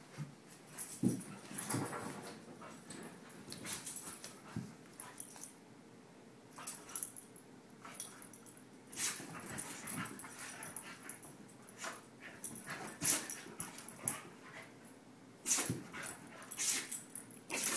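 Dog sneezing again and again in a sneezing fit: short, sharp sneezes scattered through, with quiet gaps between them and the loudest ones near the end.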